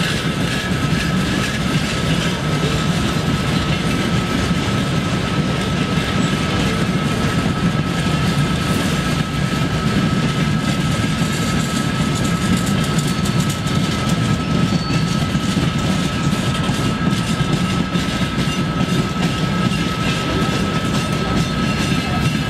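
Freight train of covered boxcars and timber flatcars rolling past close by: a steady, loud rumble of steel wheels on the rails, with a steady high-pitched tone running over it.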